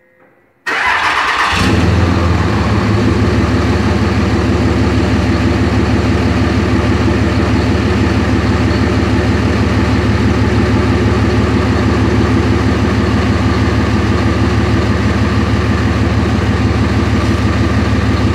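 2006 Dodge Ram 3500's 5.9-litre Cummins inline-six turbo diesel cold-starting through a new MBRP 4-inch cat-back exhaust. It fires up suddenly about a second in, runs rough for a moment, then settles into a steady idle that is pretty quiet for that exhaust.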